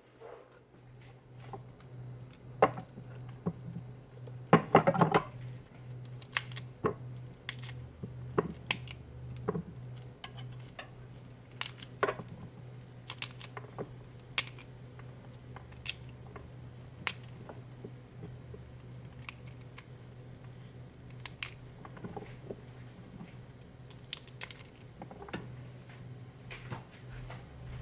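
Kitchen knife cutting a cauliflower head into florets on a wooden cutting board: irregular sharp taps and cuts, loudest around five seconds in, over a steady low hum.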